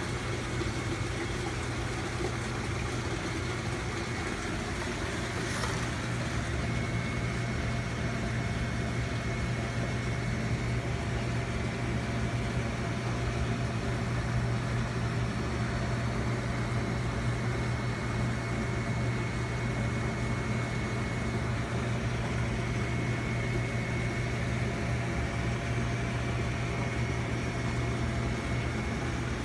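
Steady low hum of running reef-aquarium pumps and equipment, with a faint high whine on top and a brief knock about six seconds in.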